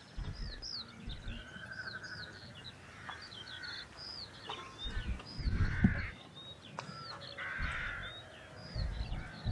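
Small birds chirping and singing outdoors, with many short, quick, arching notes throughout, over intermittent low rumbles.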